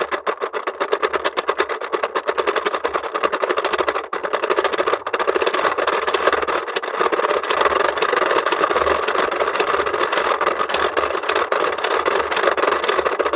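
Plastic clockwork mechanism of a 1975 Tomy owl toy clock clicking rapidly and continuously, then stopping abruptly at the very end.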